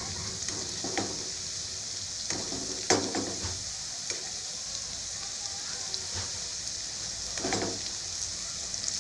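Potato and onion pakoras deep-frying in hot oil in a nonstick kadhai, with a steady sizzle. A steel spoon scrapes and knocks against the pan every second or two as the pakoras are turned over, the sharpest knock about three seconds in.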